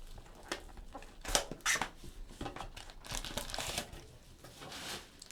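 Trading card packaging being opened by hand: plastic wrapper crinkling and tearing in short, scattered rustles, with a longer rustle about three seconds in.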